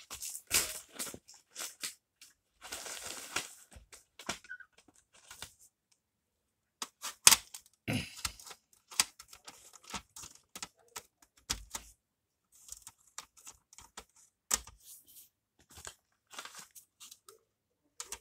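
Wrapping paper being torn and crinkled off a stack of CD jewel cases, in irregular rustling bursts with short pauses, and a few sharp clicks and knocks, the loudest about seven seconds in.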